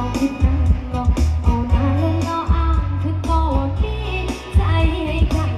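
Karaoke song, a singer over a backing track, played loud through an outdoor PA sound system with BV 18-inch bass cabinets; heavy bass pulses under the voice.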